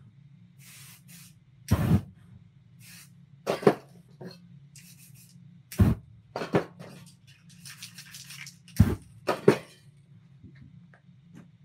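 Aerosol spray paint can hissing in short bursts, with about six brief, loud, sharp knocks among them.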